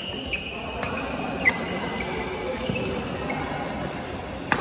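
Badminton rally: sharp racket hits on the shuttlecock, about a second and a half in and again near the end, with court shoes squeaking on the court mat in a large hall.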